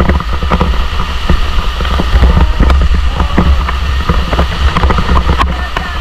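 Water splashing and sloshing right at a camera held at the surface by a swimmer in a waterfall's plunge pool, with a deep rumble of water buffeting the microphone. The waterfall rushes steadily behind.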